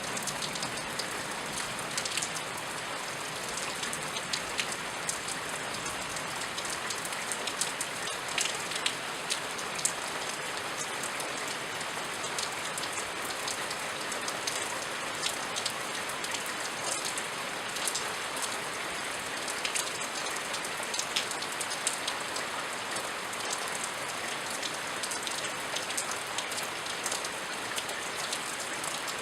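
Steady rain falling, with many close, sharp drops pattering on a hard surface over a constant hiss.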